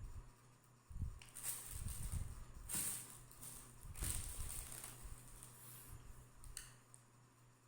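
Faint rustling and a few soft knocks as the parts of a ring light stand are handled and fitted together: three short swishes about a second apart in the middle.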